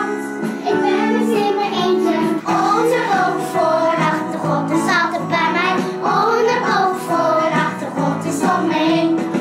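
A young child singing a song over musical accompaniment, the sung voice continuous and held on long notes.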